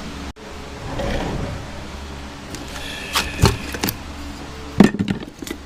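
Metal tools being handled: a few light metallic clinks with brief ringing past the middle, then a couple of sharp knocks near the end, over a low steady hum.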